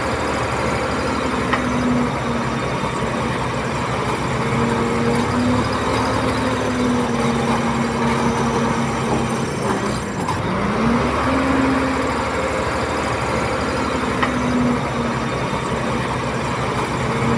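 Bulldozer's diesel engine running steadily under load. Its pitch sags briefly about ten seconds in and climbs back.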